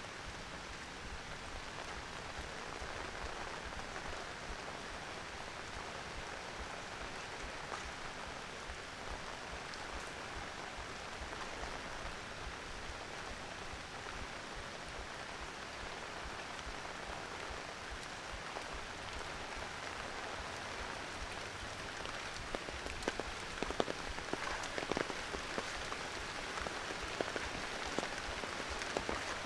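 Steady tropical rain, an even hiss. In the last third, louder single drops strike close by.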